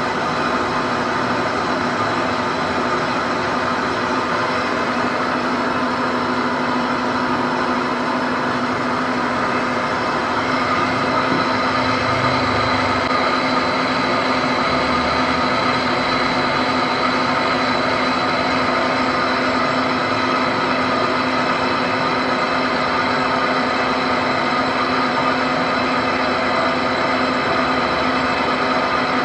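Large lathe running steadily as it turns a bronze ship propeller and the tool cuts its hub, a continuous machine hum with steady tones over a grinding noise, a little louder from about ten seconds in.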